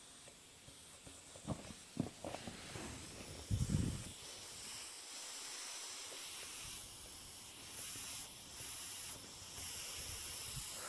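Compressed air hissing from a leak at the regulator manifold of a 50-litre air compressor, coming and going in short stretches near the end. A few knocks come first.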